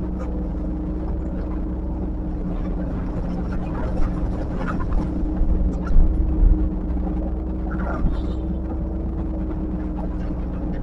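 Diesel engine of heavy earthmoving machinery running steadily, with a few knocks and clatters around the middle.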